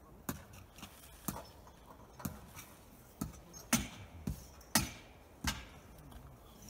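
Hammer blows on metal pieces being driven into the ground beside mobile-home tie-down anchors: sharp knocks with a short ring, about one a second at an uneven pace, a few of them louder.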